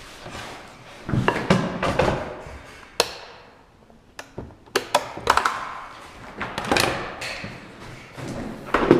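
Scattered knocks, taps and clicks with some scraping, from a wooden filler strip being handled and clamped flush on a Festool MFT/3 worktable.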